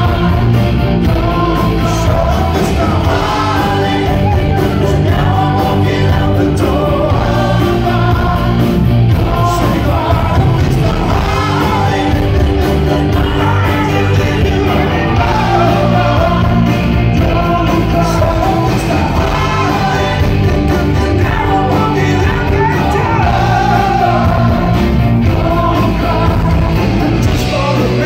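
Live rock band playing: a lead singer over electric guitar, bass guitar and drums, with the guitarist and bassist singing backing harmonies. The music is loud and steady, with no break.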